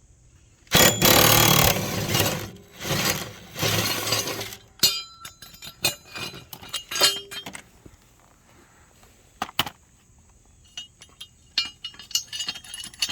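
20-volt DeWalt cordless impact driver with a 15/16 socket hammering on a mower blade bolt in three bursts. The bursts are followed by scattered light metallic clinks and knocks as the tools and blade are handled.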